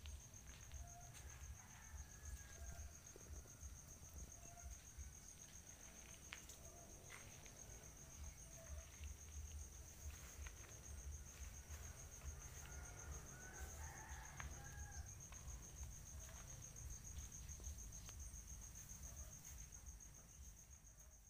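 Faint outdoor yard ambience: a steady, high, fast-pulsing insect trill throughout, with scattered faint clucks of chickens and a low rumble underneath.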